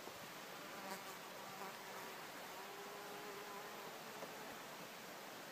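A flying insect buzzing steadily for about three and a half seconds, fading out about four seconds in, over a faint steady hiss.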